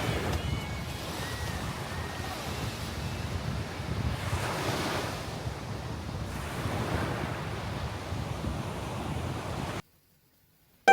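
Ocean waves washing ashore in a steady rush of surf, swelling twice. The sound cuts off abruptly about a second before the end.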